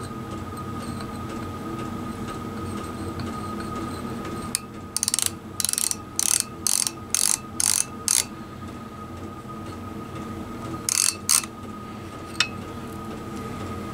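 Ratchet stop of a 75–100 mm digital outside micrometer clicking in short bursts as the thimble is turned to close the spindle on a piston. There is a run of about seven bursts, two a second, then two more and a single click near the end. The clicking shows that the spindle has seated on the piston at its set measuring pressure.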